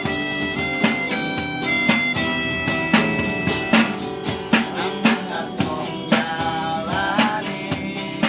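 Music with guitar and a drum beat of sharp strokes about twice a second, with long held high notes over it in the first half and a wavering melody line near the end.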